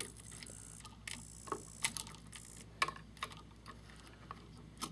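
Faint, irregular clicks and taps of voltage-tester probes and a screwdriver tip touching the screw terminals of a light switch, testing for the conductor that is hot all the time.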